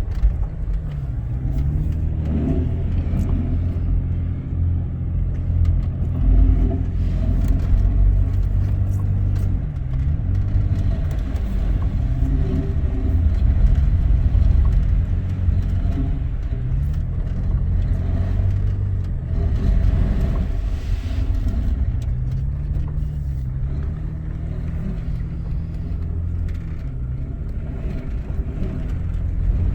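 A 4x4's engine pulling through the sand dunes, its pitch rising and falling again and again as the throttle comes on and off, over a steady low rumble.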